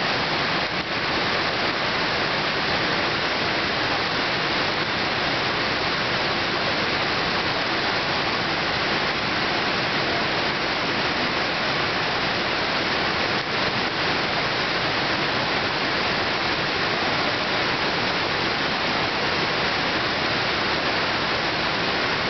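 Large waterfall pouring over several cascades into a pool: a steady, unbroken rush of falling water.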